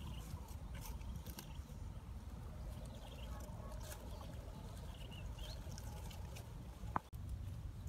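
Rustling and light crackling of long green grass leaves and stalks being handled and tied into a bundle, with scattered small clicks over a steady low rumble. A single sharp click about seven seconds in, and faint high chirps now and then.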